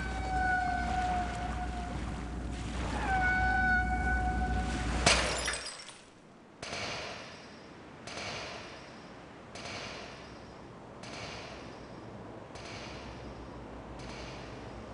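Two long, steady tones of about two seconds each, then a sharp crash about five seconds in. After a brief hush a crow caws six times, about every second and a half.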